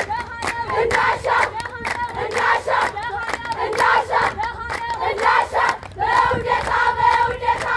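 A large group of girls singing a Shaday festival song together, with rhythmic hand-clapping.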